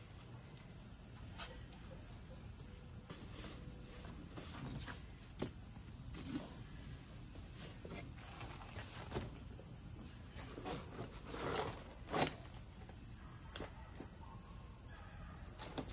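Steady high-pitched insect chorus, with scattered clicks and knocks from a folding camp cot's jointed frame as it is flipped over and pushed on. The loudest knock comes about twelve seconds in.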